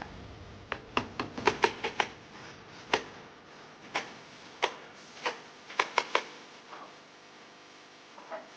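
A run of sharp, irregular clicks and taps, about fifteen over some six seconds, then one faint one near the end: metal engine parts and tools being handled as pistons are fitted into a BMW N54 twin-turbo straight-six.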